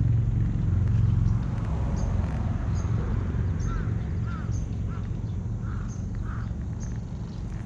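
Domestic cat purring close to the microphone as it is stroked: a steady low rumble that eases off somewhat after about a second and a half. Faint bird calls are heard in the background.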